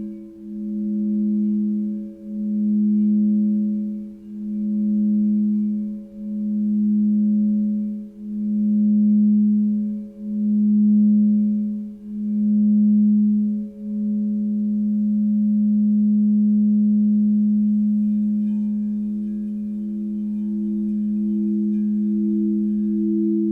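Crystal singing bowls ringing together in several sustained tones. The lowest tone swells and fades about every two seconds, then holds steady a little past halfway, and near the end a higher tone starts pulsing faster.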